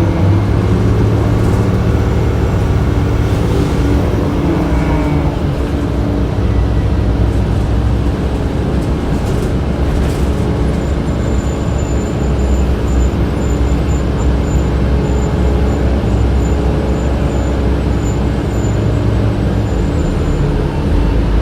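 Inside a 2007 Orion VII city bus on the move: its engine and drivetrain run with a steady low drone under road noise and the HVAC running. A faint high whistle comes in about halfway through.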